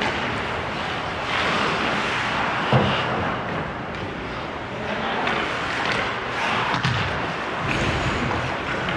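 Ice hockey rink sounds: skate blades scraping the ice, with sticks and puck knocking. One sharper thud comes about three seconds in.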